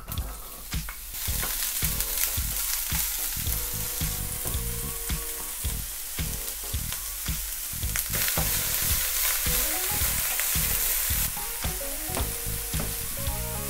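Diced zucchini and vegetables sizzling as they fry in hot oil in a frying pan. The sizzle picks up about a second in, as the cubes land in the oil. Light background music plays underneath.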